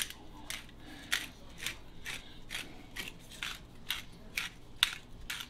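Hand pepper mill grinding peppercorns: a short rasping grind with each twist, about twice a second.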